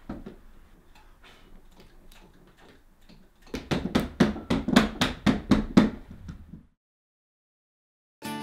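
A few faint clicks from a hand tool, then a run of sharp knocks, about four a second, for some three seconds from work on a timber sash window, stopping abruptly. Acoustic guitar music comes in at the very end.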